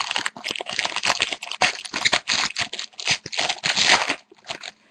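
Hockey card pack wrapper being torn open and crinkled, a rapid run of rustling and tearing that stops shortly before the end.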